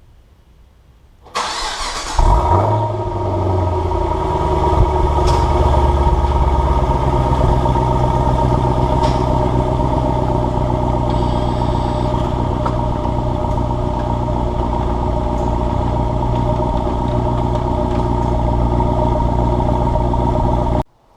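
A 2015 Chevrolet SS's 6.2-litre V8 cranked by the starter, catching about two seconds in with a brief flare of revs, then idling steadily through its exhaust. The sound cuts off abruptly near the end.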